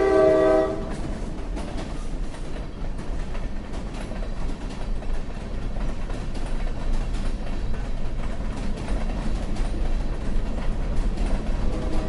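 A CSX freight train's diesel locomotive horn sounds loudly and cuts off about a second in. The steady rumble of the passing freight train follows, and the horn sounds again, fainter, near the end.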